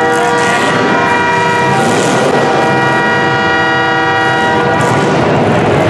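A horn sounding one long chord-like blast of about five seconds, stopping a second before the end, over the rough noise of derby car engines.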